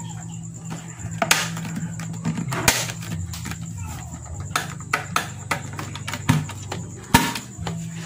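Plastic clicks and knocks of an electric kettle's plastic body being turned over and fitted back together by hand, with sharper knocks about a second in, near three seconds in and near the end, over a steady low hum.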